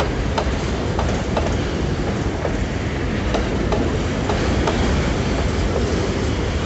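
Empty freight wagons rolling past close by, a steady deep rumble of steel wheels on rail with repeated clicks as the wheels cross rail joints.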